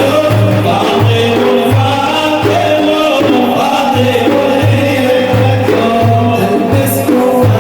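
Sufi devotional praise singing (madih) by a group of voices, over frame drums beating a steady rhythm about twice a second, with jingles.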